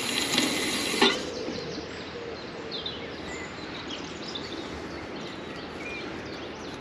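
Small birds chirping and singing in many short calls. For about the first second a rustling handling noise covers them, ending in a sharp click.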